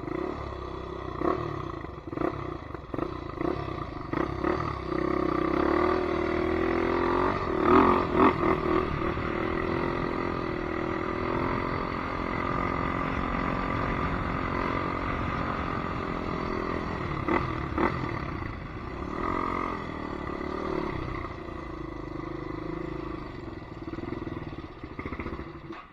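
Polaris Predator 500 ATV's single-cylinder four-stroke engine running, with the revs rising and falling about six to nine seconds in. A few sharp clicks are heard along the way.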